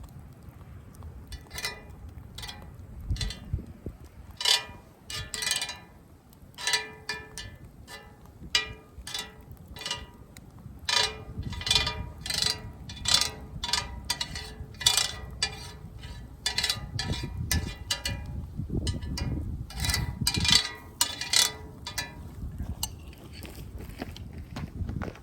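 A metal utensil clinks again and again against metal cookware, each strike ringing briefly, in an irregular rhythm of about one to three strikes a second. The strikes thin out near the end.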